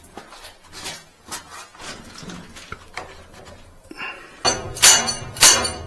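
Fitting a plastic liner into an elevator's sliding guide shoe: light clinks and scrapes of metal parts, then, about four and a half seconds in, two sharp knocks as the liner is struck to drive it in. It is a tight fit that will not push in by hand.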